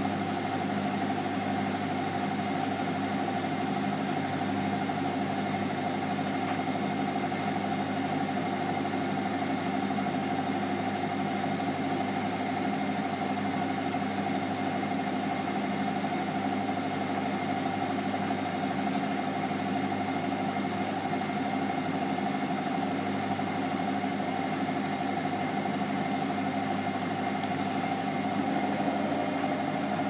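Hotpoint NSWM 843C washing machine's inverter motor and drum running through its wash cycle with a full load, a steady machine hum with several constant tones that does not pause or change.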